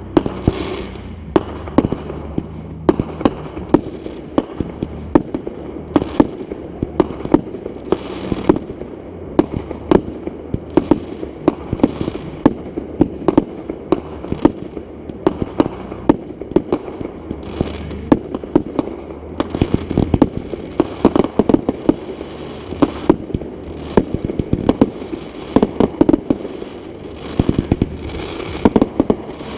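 Fireworks display: a continuous barrage of sharp bangs from bursting shells, often several a second.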